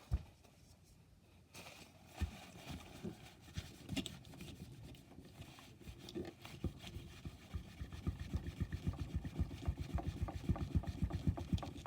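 Towel scrubbing a graphics card's copper heatsink in quick back-and-forth strokes, working at caked-on old residue. The strokes start as scattered rubs and thumps and become fast and steady from about halfway through.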